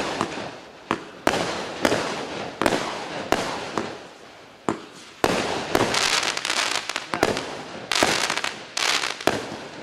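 Klasek 'Fireworks Show 192' fireworks cake firing shots in quick succession, about one a second, each a sharp bang followed by a fading crackle. From about halfway through, the crackling becomes dense and continuous, with more bangs through it.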